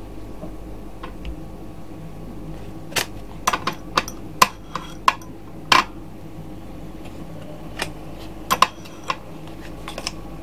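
Kitchen clatter: sharp clinks and knocks of dishes and utensils being handled over a steady low hum. A cluster of them comes about three to six seconds in, and a few more near the end.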